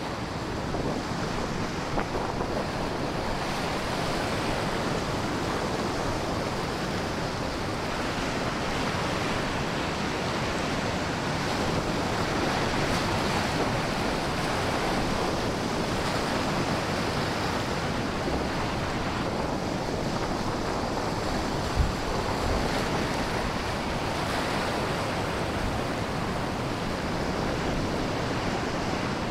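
Stormy sea breaking on a rocky shore in strong wind: a steady, unbroken wash of surf and wind. One brief low thump about three-quarters of the way through.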